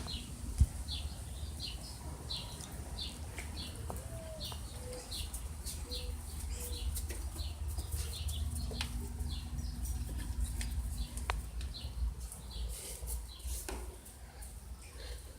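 A bird chirping over and over, short high calls about twice a second, over a steady low rumble of wind on the microphone, with a few faint clicks.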